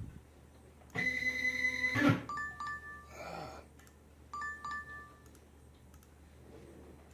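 Electronic alert tones: a steady beep lasting about a second, then two short two-note chimes about two seconds apart.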